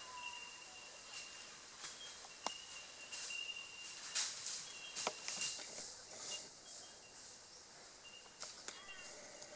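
Faint bushland ambience: small birds chirping and whistling, with irregular crunching and rustling of dry leaf litter and brush underfoot, busiest around the middle.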